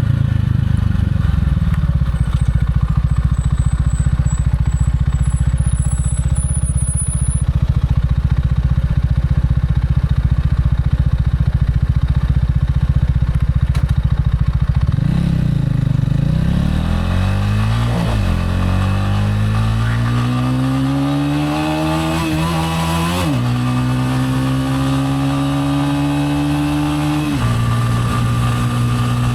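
Gilera AC4 motorcycle engine running steadily at low revs for about fifteen seconds, then pulling away: the revs climb, drop back at a gear change about 18 seconds in, climb again and shift twice more, at about 23 and 27 seconds.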